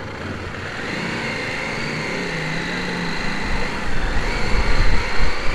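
CFMoto 800 motorcycle engine pulling away and gathering speed, its note rising about a second in, with low wind rumble on the microphone building toward the end.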